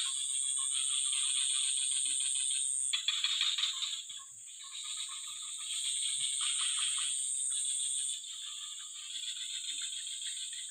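A chorus of frogs calling in fast rattling trills, swelling and fading in waves, over a steady high-pitched insect whine that breaks off twice.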